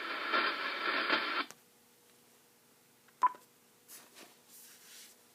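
Icom IC-7000 transceiver's speaker playing noisy received audio, which cuts off abruptly about a second and a half in, followed by a single short beep from the radio.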